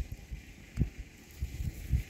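A wood fire burning in the open, with a few faint crackles, under loud, irregular low rumbles of wind buffeting the microphone.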